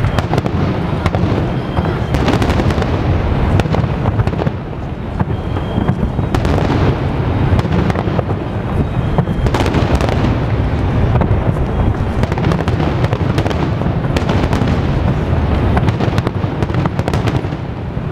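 Large aerial fireworks display: a dense, continuous barrage of shell bursts, many sharp cracks over a steady low rumble.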